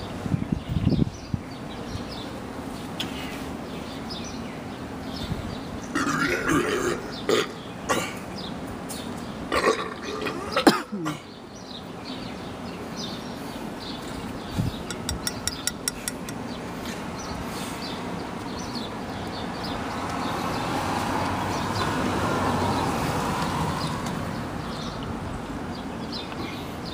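A man burping repeatedly while chugging Mickey's malt liquor from a glass bottle. The loudest burps come in a cluster about six to eleven seconds in.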